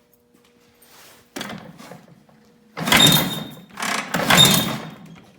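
1947 motorcycle engine being started: a short burst, then it fires and runs in two loud rough surges about a second apart.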